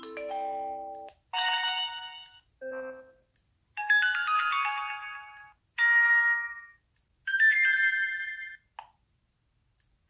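Built-in Sony Xperia Z ringtone playing from the phone's speaker: a synthesized melody of about seven short chimed chords, each fading out, with short gaps between them.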